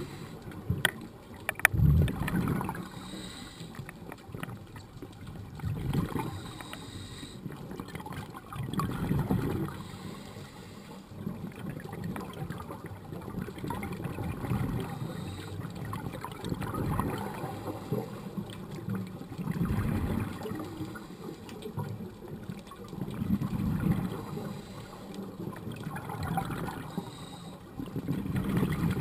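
Scuba diver's exhaled bubbles from the regulator, heard underwater as a rushing, gurgling swell that comes back every three to four seconds with each breath. A few sharp clicks in the first two seconds.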